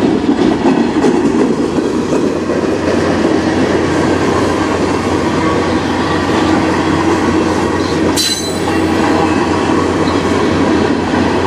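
Tank cars of a freight train rolling past close by: a steady rumble of steel wheels on rail, with a brief sharp high-pitched sound about eight seconds in.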